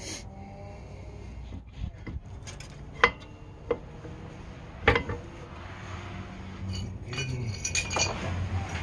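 Steel brake caliper and its wire spring clip clinking and knocking against the pads and rotor as the caliper is fitted by hand. Three sharp metallic knocks come in the middle and ring briefly, then a quicker run of rattling clicks follows near the end.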